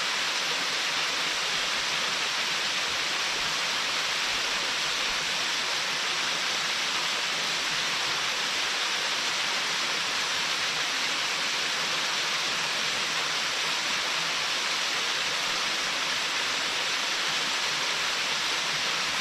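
Waterfall rushing down a rock face with no plunge pool beneath it: a steady, unbroken hiss of falling and splashing water, strongest in the upper-middle range.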